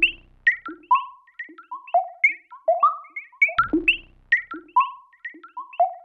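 Background music: a quick melody of short, decaying synthesizer notes that jump between pitches.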